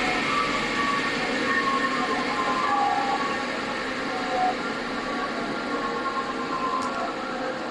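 Double-head PVC profile cutting saw running idle, a steady mechanical hum with a faint whine and no cut being made.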